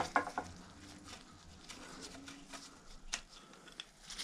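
Small metal tool clicks as an Allen key and loose bolts are handled against a bicycle frame: one sharp click at the start, then faint scattered ticks and taps.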